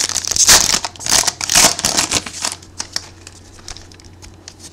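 A trading card pack's wrapper crinkling and tearing as it is opened, followed by light clicks and rustles of cards being handled.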